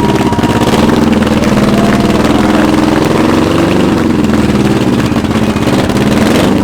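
Custom-built motorcycle's engine idling loudly, its pitch rising briefly a few seconds in as the revs come up a little.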